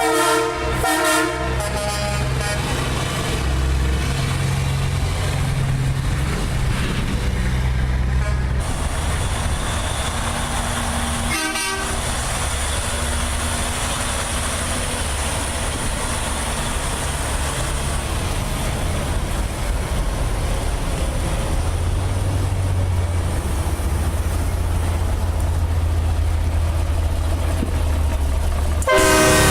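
Diesel semi truck sound effect: an air horn blast opens it, then the diesel engine runs with a steady low rumble. Another horn blast sounds near the end.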